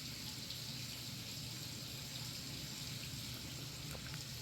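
Steady faint hiss with a low hum underneath: background room noise, with one small click near the end.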